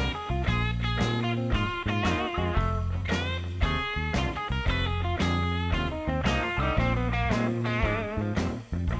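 Background music: a guitar-led instrumental of quick plucked notes over a steady bass line.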